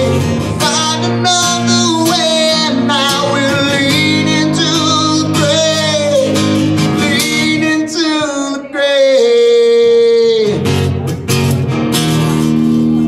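A man singing live to his own strummed acoustic guitar, with one long held note about nine seconds in.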